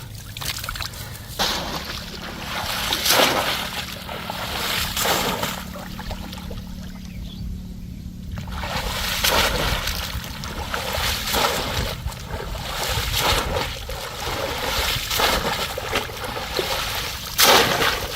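Water splashing and sloshing in shallow water during polo fishing, a splash every two seconds or so. A steady low hum runs under the first half and stops about halfway through.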